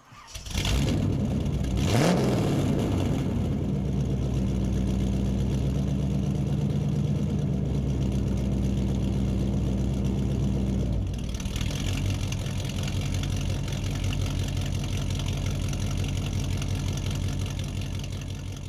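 A car engine starting with a quick rising rev, then running steadily. Its sound changes about eleven seconds in, and it fades out near the end.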